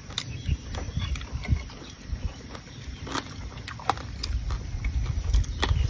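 Eating boiled frogs: scattered small clicks and crunches of eating, over a low, uneven rumble.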